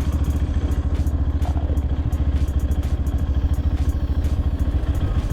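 Motorcycle engine running steadily under way, with a fast even low pulsing.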